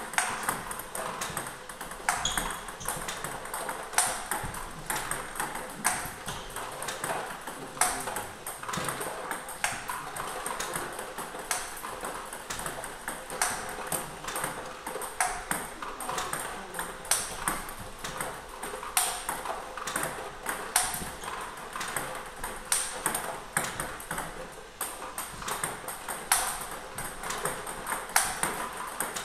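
Table tennis rally against a ball robot: sharp plastic clicks of celluloid balls bouncing on the table and being struck by a racket with Nittaku Kyohyo Pro 3 Turbo Blue rubber, hitting backspin balls fed by the machine. A firmer stroke comes every couple of seconds amid quicker, lighter clicks, over a faint steady whine.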